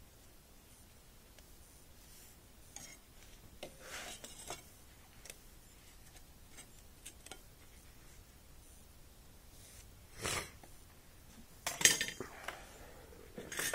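Steel pieces and small metal shop tools being handled on a workbench: a few faint clicks and scrapes, then a single knock, then several sharper metal clanks near the end.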